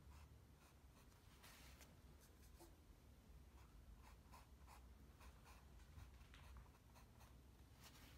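Faint, scratchy strokes of a small paintbrush working acrylic paint onto the painting, in short irregular bursts, over a low room hum.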